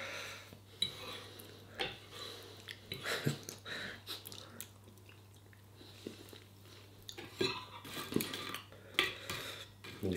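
Metal knife and fork tapping and scraping on a ceramic dinner plate in scattered light clinks, sparse in the middle and busier near the end.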